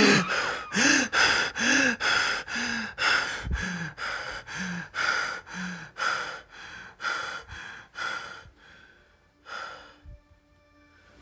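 A person panting hard: quick voiced gasps, about two a second, that gradually die down, with one last gasp near the end.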